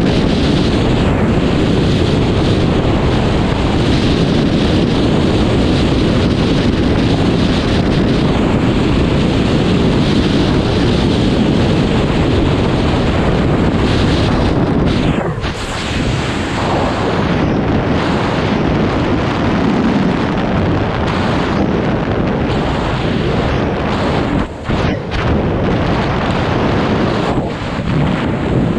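Loud, steady wind noise buffeting a camera microphone, typical of skydiving freefall. It dips briefly about halfway through and again a few seconds before the end.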